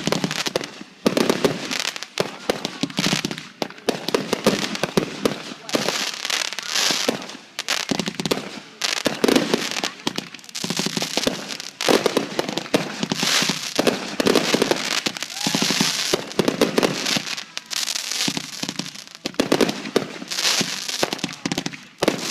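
Fireworks display going off in dense waves: rapid bangs and crackling shells one after another, with only brief lulls between volleys.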